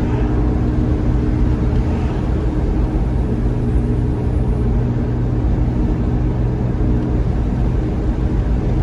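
Steady road and engine noise inside a moving car: a low rumble with a faint steady hum.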